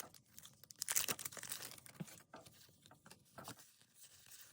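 A Pokémon TCG booster pack's foil wrapper being torn open and crinkled in the hands, a run of uneven rustles, loudest about a second in.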